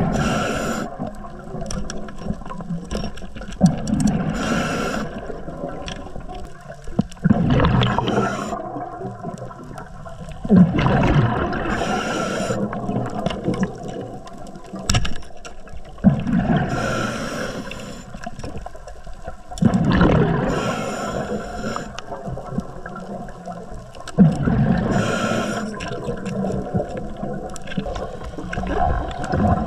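Scuba diver breathing underwater through a regulator: a bubbling rush of exhaled air, then a hiss of inhaled air, repeating about every four seconds.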